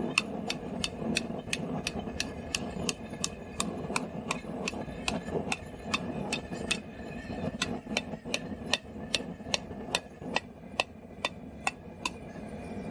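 A two-pound rounding hammer striking a heated 3/8-inch square steel bar on an anvil, hand-forging steady blows about three a second with a bright anvil ring. The blows get lighter over the last few seconds.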